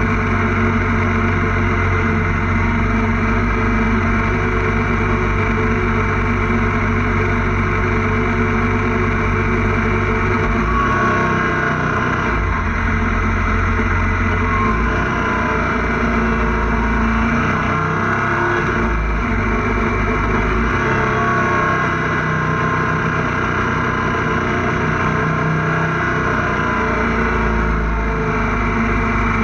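Motorcycle engine running while riding, heard from on the bike over wind and road noise. Its deep, steady note eases off and wavers through the middle, with short rises and falls in pitch, and is steady again near the end.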